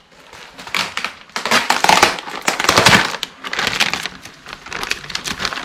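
Packaging crinkling and rustling in irregular bursts as the side skirt kit is unwrapped, loudest in the middle.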